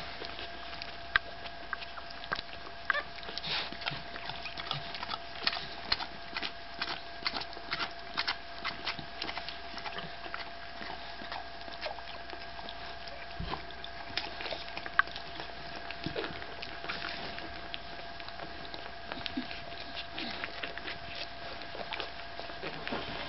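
Five-day-old Staffordshire Bull Terrier puppies nursing: a scatter of short, sharp little squeaks and suckling noises over a faint steady hum.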